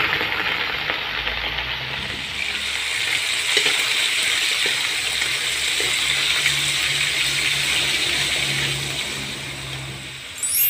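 Food frying in a hot pan, a steady sizzling hiss with a few light clicks, thinning out near the end. A short rising swoosh closes it.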